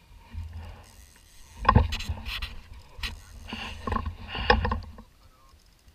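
Wind rumbling on the microphone, with a cluster of knocks and rattles from gear being handled in a small boat about two seconds in and again around four seconds in.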